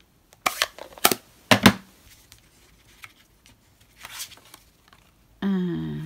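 Craft supplies handled on a table: a few sharp clicks and taps within the first two seconds as an ink pad and card stock are picked up and set down, then a soft paper rustle about four seconds in. Near the end, a brief hummed voice.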